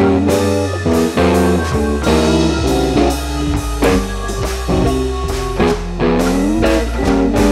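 Background music: a guitar-led rock or blues track with drums and a steady bass line.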